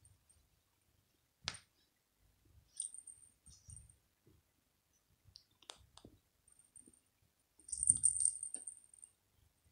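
A small bell inside a cat's toy ball jingling in short, scattered bursts, with a few single clicks. The longest and loudest jingle comes near the end.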